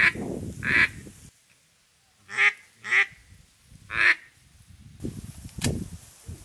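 Duck quacks in the manner of a hen mallard: five loud, raspy single notes with short gaps between them, over the first four seconds or so. These are calls to attract ducks flying overhead.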